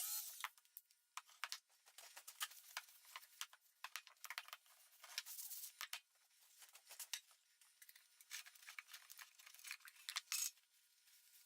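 Faint, irregular clicks and scrapes of small parts and tools being handled by hand, with several sharper clicks around ten seconds in.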